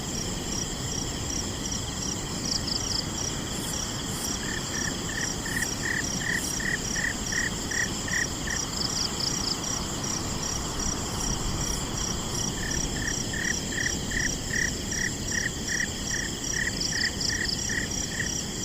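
A chorus of crickets and other insects, with steady high trilling and a regular chirp about twice a second. Twice, a lower call repeats in an even series of pulses for several seconds.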